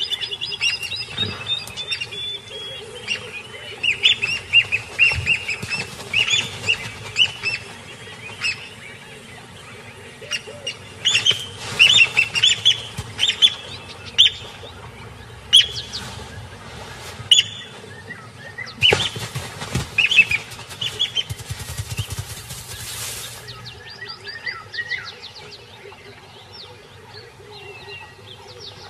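White-crowned lapwing (wattled plover) giving repeated sharp, high alarm calls in loud clusters as it defends its nest against a monitor lizard. About nineteen seconds in, a rushing hiss lasts some four seconds.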